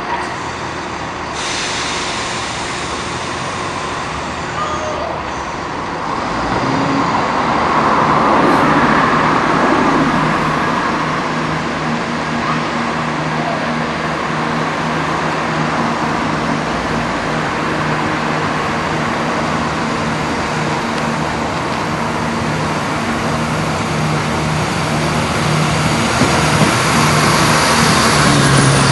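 Class 170 Turbostar diesel multiple unit pulling away from a station: its underfloor diesel engines run at a low drone, then open up about six seconds in as it accelerates, the steady engine note growing louder as the train approaches and passes close by near the end.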